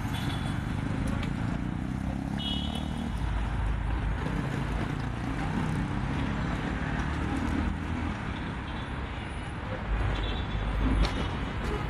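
City road traffic: the engines of a passing minibus and cars running over steady road noise, with a few brief high chirps.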